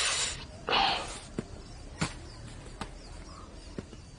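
Footsteps on a hard floor: sharp single clicks about every half second to second. Two short rushing noises come in the first second.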